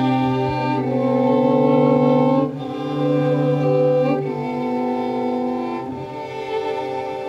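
String quartet of two violins, viola and cello playing slow, sustained bowed chords that change about every second and a half. The piece turns the temperature record of the last 133 years into music, with the cello voicing the equator and the violins the high latitudes.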